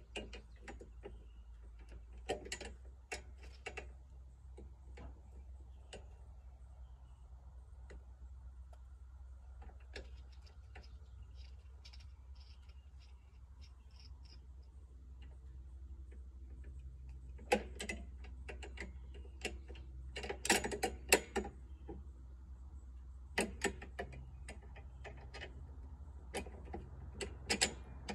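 Scattered clicks and knocks of a lawn mower's handle parts being handled and fitted onto the lower handle bars, sparse at first and coming in quick clusters through the last ten seconds or so.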